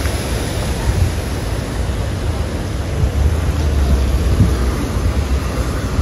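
Steady rumble of a car driving on a mountain road, road and wind noise with gusts of low buffeting.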